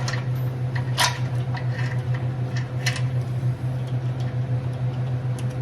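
Steady low electrical hum from a shop welder left switched on, with sharp metal clicks about one second and three seconds in.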